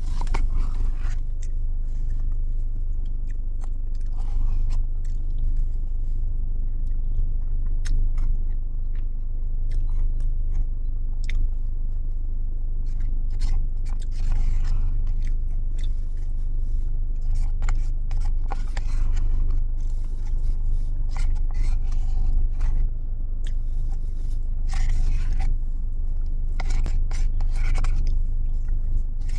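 A spoon scraping and digging into a dessert cup in repeated short strokes, with chewing and crunching of a biscuit-topped Biscoff dessert, over a steady low hum.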